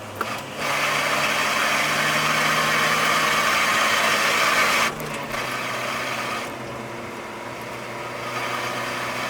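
Nissan 240SX (S13) engine heard from inside the cabin, pulling loudly under throttle for about four seconds, then dropping off suddenly about five seconds in as the throttle is lifted, running more quietly after that.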